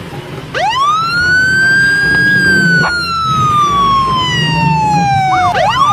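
Police car siren: a wail that rises sharply, then falls slowly over several seconds, switching near the end to a fast up-and-down yelp.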